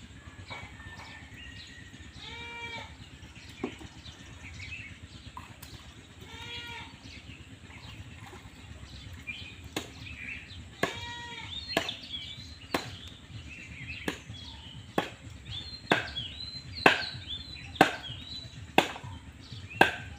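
A stick slapping the surface of pond water in sharp strokes about once a second through the second half, growing louder. Earlier a farm animal bleats a few times.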